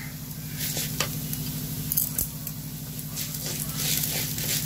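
Wooden spatula stirring and scraping urad dal and chana dal as they roast in a kadai, the grains rustling and rattling against the pan in scattered strokes that come more often in the second half. A steady low hum runs underneath.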